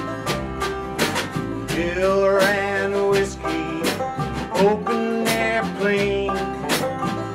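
Bluegrass-style band playing: a resonator banjo picking a lead over a strummed acoustic guitar and upright bass, with a steady beat.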